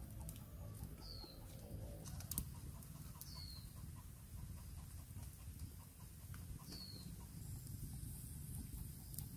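A bird calling a short, high, falling whistle three times, a few seconds apart, over a faint steady low background, with a couple of sharp clicks about two seconds in.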